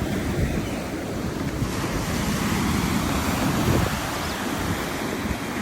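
Sea waves breaking and washing on the shore, with wind buffeting the microphone. The hiss of a wave swells about two seconds in and is loudest near the middle.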